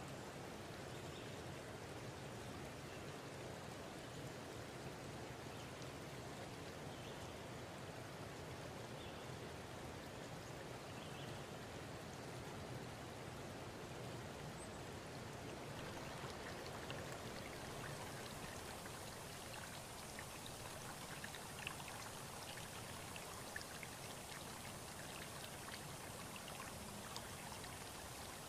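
Steady, even rushing hiss like rain or running water, with a few faint ticks in the second half.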